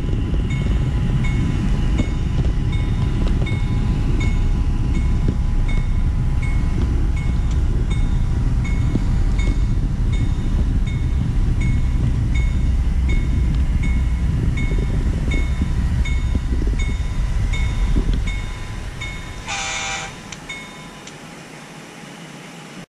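Model train running on its layout track, heard from on board: a steady low rumble of wheels and motor with a light click repeating a little more than twice a second as the wheels cross the track joints. The rumble falls away about eighteen seconds in as the train slows, and a short horn blast sounds about a second and a half later.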